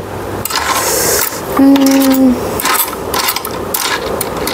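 Eating sounds: chewing and quick clicks of utensils against dishes, with a short closed-mouth hum of enjoyment about a second and a half in.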